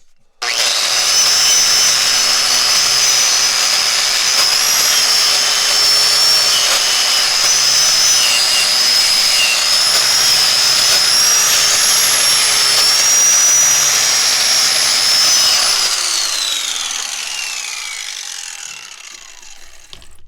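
Small wire-brush grinder switched on about half a second in, running at full speed with a high whine over a rough scrubbing sound as it brushes thick paint off an old leg vise. Near the end it is switched off, and the whine falls in pitch as it spins down.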